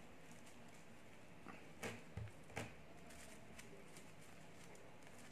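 Near silence with three or four light taps and rustles close together about two seconds in, from hands handling a satin ribbon bow on a foam cone.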